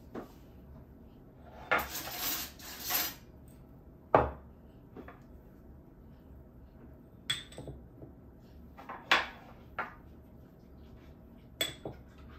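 Kitchenware being handled: dishes and metal utensils clinking and knocking in a series of separate short impacts, with a brief rattle about two seconds in and the loudest knock about four seconds in.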